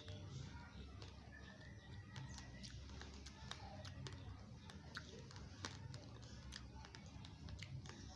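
Faint, irregular crunching clicks of dry, uncooked rice grains being chewed, over a low steady background hum.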